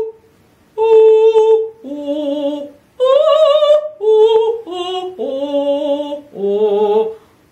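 A woman singing a string of about seven short vowel notes at pitches jumping up and down, some with vibrato, with two fingers held between her teeth to keep the mouth open: a vocal-technique exercise, sung in varied styles and sounds rather than one.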